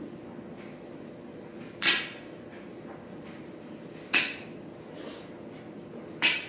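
Dog nail clippers snapping through a dog's toenails: three sharp clips about two seconds apart, with a few fainter clicks between them, over a low steady hum.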